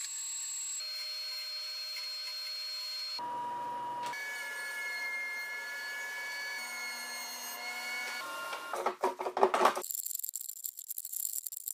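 Woodshop power tools, a bandsaw and a benchtop thickness planer, running in a string of short cuts, each a steady whine at a different pitch. Near the end comes a loud burst of rapid clattering and knocking, then a hiss with a high steady tone.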